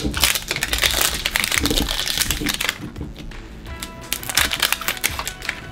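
Plastic-coated wrapper of an L.O.L. Surprise Confetti Pop ball crinkling and tearing as it is peeled open by hand. The crinkling is dense for the first couple of seconds, then thins to scattered crackles, with background music underneath.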